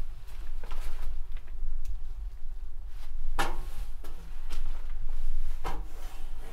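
Knocks and faint taps in a small room: two sharp knocks about two seconds apart, the first the loudest, over a steady low rumble.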